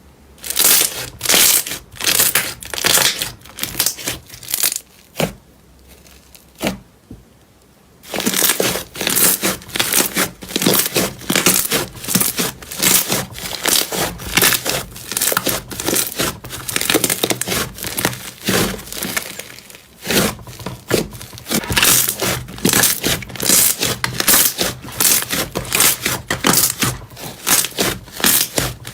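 Slime being kneaded and squeezed by hand, making rapid wet crackling and popping clicks. These are sparse over the first few seconds, then dense and continuous from about eight seconds in.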